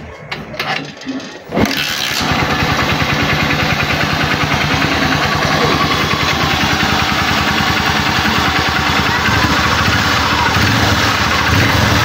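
Honda TMX Supremo's single-cylinder four-stroke engine being kick-started: a few knocks from the kick lever, then it catches on the first kick about a second and a half in and runs steadily at idle. The easy start shows the hard-starting fault, caused by the old grounded wiring harness, is cured.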